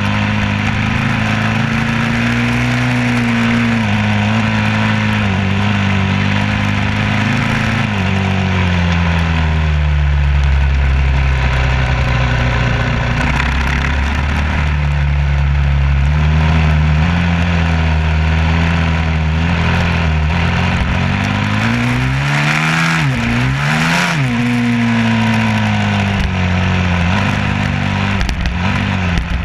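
A vehicle engine running steadily under load with a constant rush of noise. Its pitch drops about a third of the way in and holds lower, then falls sharply and climbs back again about three quarters of the way through.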